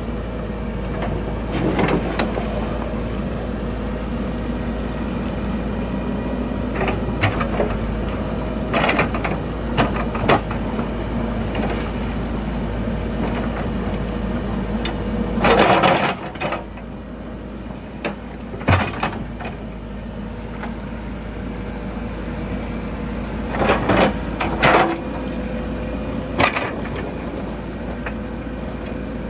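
Hidromek backhoe loader's diesel engine running steadily as its excavator bucket works in a flooded pit. Scattered knocks and clunks come from the bucket shoving boulders, the loudest a longer rattle about halfway through.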